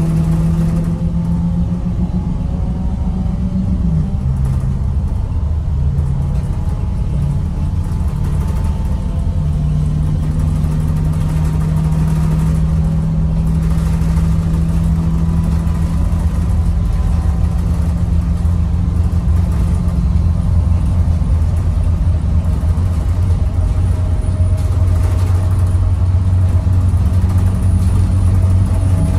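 Navistar VT365 V8 turbo-diesel of a school bus running under way, heard from inside the passenger cabin along with road noise, on freshly replaced injectors. The engine note steps in pitch a few times in the first several seconds, holds steady through the middle, and drops lower after about 20 seconds.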